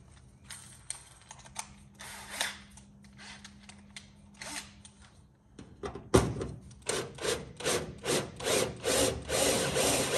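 A power drill cutting a half-inch hole through thin aluminum fuselage skin. It starts as faint scraping under a low hum, then from about halfway becomes a run of louder, even rasping strokes, two to three a second, as the cutter bites in.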